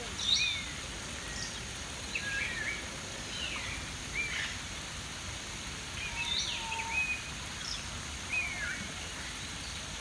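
Birds calling in short, scattered whistles and chirps that glide up and down, over a steady rush of flowing stream water.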